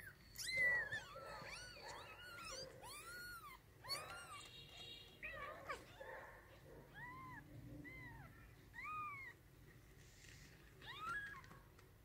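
Newborn kittens mewing: a quick series of short, high-pitched mews, each rising and falling in pitch, with a short lull before a last few near the end.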